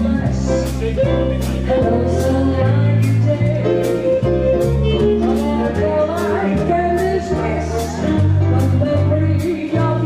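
A small jazz band playing live: a woman singing over upright double bass, electric keyboard and drums, with the cymbal keeping time at about two strokes a second.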